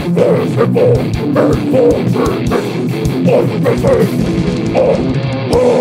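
Death metal band playing live: distorted electric guitars and a drum kit with rapid kick-drum hits, and a vocalist growling into the microphone.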